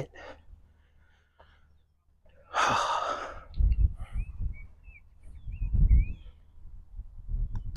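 A person sighs heavily, one long breathy exhale about two and a half seconds in, in frustration at a just-missed birdie. After it come scattered low rumbles and a few faint, short high chirps.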